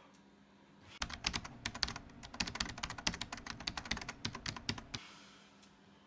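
A fast run of sharp clicks or taps, lasting about four seconds, starting about a second in and stopping abruptly.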